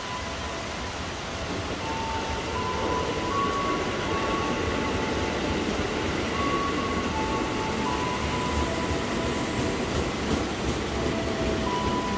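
Electric commuter train (JR 205-series EMU) pulling into the platform and running alongside it. A steady rumble of wheels and running gear grows louder about two seconds in and holds.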